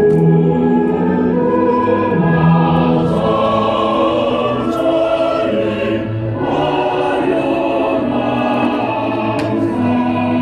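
Music with a choir singing slow, held chords.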